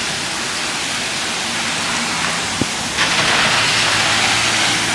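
Heavy rain pouring down steadily, swelling louder about three seconds in, with a single sharp click shortly before.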